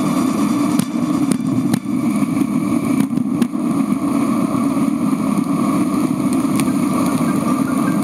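Steady traffic and road noise from a bicycle ride beside a busy highway, pitched up by being played 80% faster, with a few sharp clicks.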